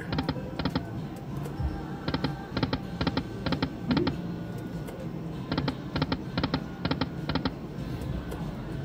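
Dollar Storm Emperor's Treasure video slot machine spinning its reels: runs of evenly spaced ticks, about three a second, as the reels spin and stop, over steady background music.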